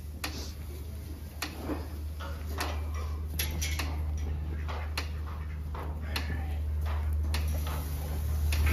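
Irregular sharp clicks and knocks over a steady low hum.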